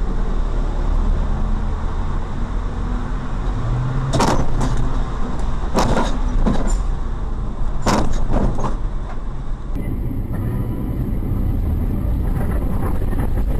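Steady low rumble of a car's engine and road noise picked up by a dashcam, with three sharp bangs about four, six and eight seconds in.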